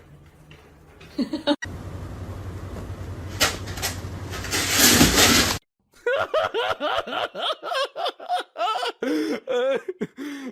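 People laughing in quick, repeated bursts through the second half, after a few seconds of steady noise with a loud rush.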